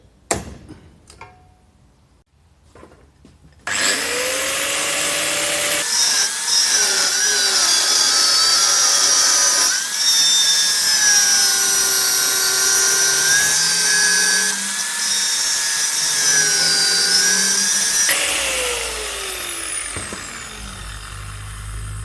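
A power tool cutting out a steel knife blank: its motor whines, high-pitched, with the pitch wavering as it cuts. About eighteen seconds in it is switched off and winds down with a falling whine.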